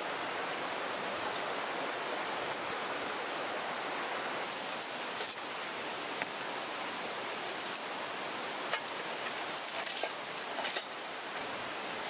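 Steady rushing of a rocky mountain stream. From about four seconds in, light clicks and rustles of camping gear being handled break in over it.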